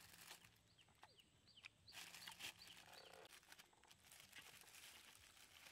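Thin plastic bag crinkling and rustling in irregular bursts as a hand rummages in it for rambutans, with small clicks of the fruit being handled.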